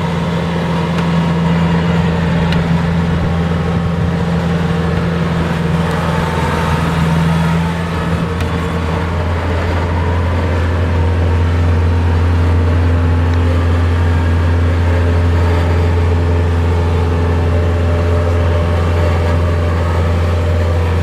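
Kubota DC-70 Plus rice combine harvester's diesel engine running steadily as the machine works, a loud, even drone whose note shifts slightly about eight seconds in.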